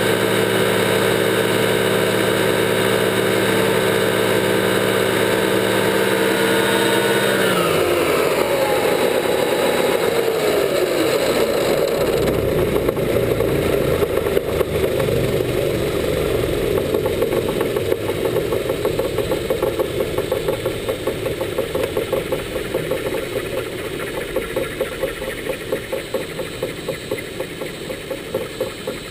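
Quarter-scale Vario Ecureuil RC helicopter's drive and rotor running steadily, then about seven seconds in the pitch slides down over several seconds as it is throttled back. A rough, pulsing whir follows and slowly fades as the rotor winds down.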